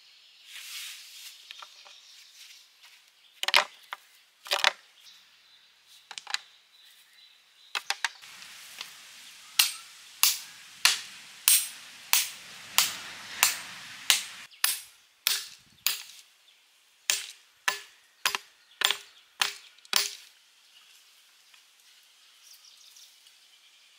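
Repeated sharp strikes of a hand tool. A few scattered knocks come first, then a steady run of about two strikes a second lasts for around ten seconds and stops some four seconds before the end.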